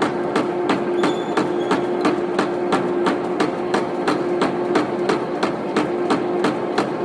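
Lathe running slowly in back gear while a drill bit is fed into the workpiece from the tailstock: a steady hum with a regular knocking, about four knocks a second.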